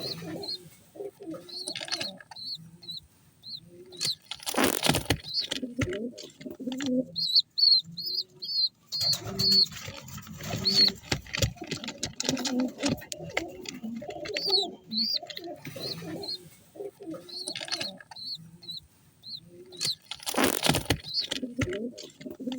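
Pigeon squabs peeping in runs of short, high cheeps, with low pigeon cooing under them. Twice there is a loud burst of rustling, a few seconds in and near the end.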